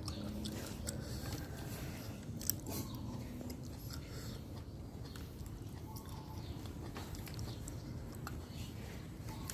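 A person chewing a mouthful of raw beef close to the microphone, with small wet clicks and one sharper click about two and a half seconds in.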